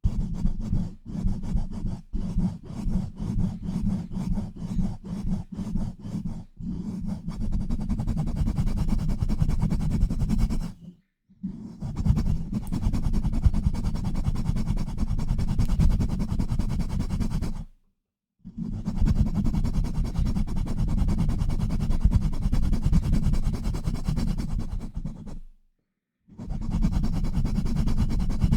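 Hands pumping and scratching right against an uncovered microphone: quick rhythmic strokes, about three or four a second, for the first six seconds or so, then long stretches of continuous rough rubbing broken by three short pauses. The sound is a deep, muffled close-mic rumble.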